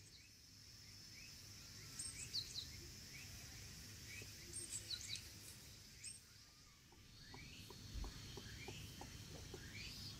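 Quiet outdoor ambience: birds chirping in many short rising calls over a steady high insect tone, with a few faint clicks near the end.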